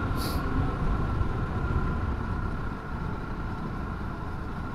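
Sur-Ron Storm Bee electric motorbike riding at about 55 mph: steady wind and road rumble with a faint steady high whine from its electric drive. The noise drops a little about three seconds in as the bike eases off.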